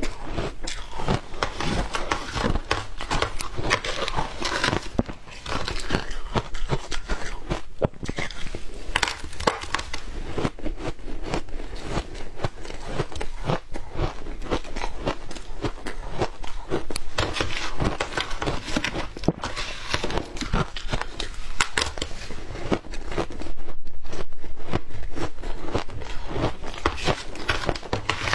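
Shaved ice crunched and chewed in the mouth: a dense, continuous crackling crunch, with the metal spoon scooping the ice from a plastic tub near the end.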